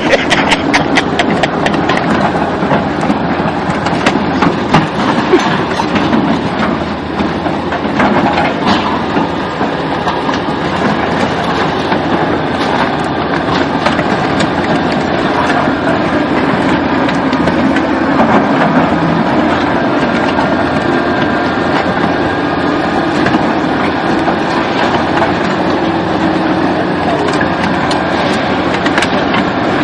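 A vehicle running steadily, with rapid clicking and clattering in the first second or so and scattered knocks.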